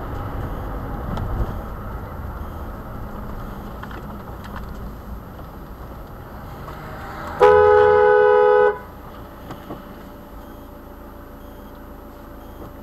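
A two-tone car horn sounds once, loud, for just over a second, about halfway through. Steady road and engine noise from inside a moving car runs underneath.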